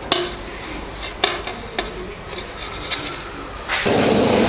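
Grated jaggery tipped from a plate into a stainless-steel roaster bowl, with a few sharp taps of the plate on the steel. Near the end the roaster's motor-driven stirrer starts and runs loudly and steadily with a low hum.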